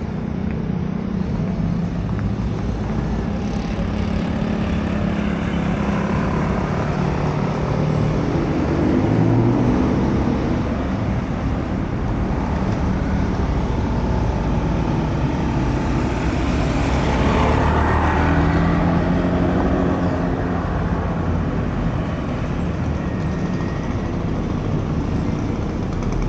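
City street traffic: cars and motorbikes running and passing, with a louder vehicle going by about two-thirds of the way through.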